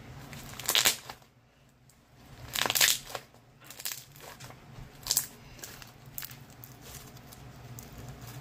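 Slime squished, folded and stretched by hand, crackling and popping, with three louder pops about one, three and five seconds in.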